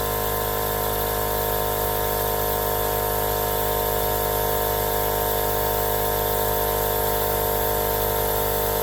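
Small electric air pump running steadily with a constant whine, inflating a newly mounted mini bike tire to seat its bead against the rim.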